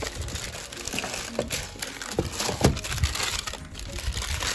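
White packing paper rustling and crinkling as wrapped items are handled and pulled out of a cardboard box, with a few soft knocks about two and a half seconds in.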